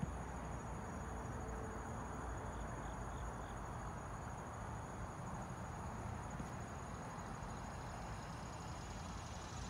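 Steady high insect trill over a low background rumble, with four short faint chirps about three seconds in.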